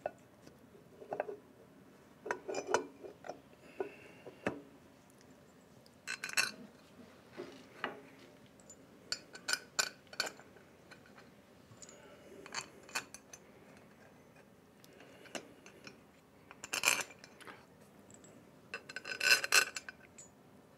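Scattered metallic clinks and light scrapes as the cylinder head of a Copeland 4R/6R compressor is set in place and its head bolts are handled and started into their holes by hand. The clinks are irregular, with the busiest stretch near the end.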